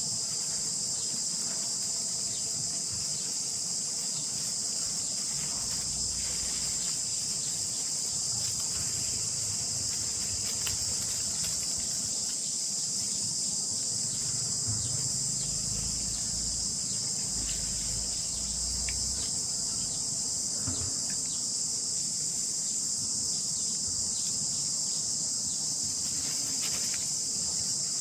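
Steady, high-pitched insect chorus, unbroken throughout, with faint low rumbling and scattered faint clicks beneath it.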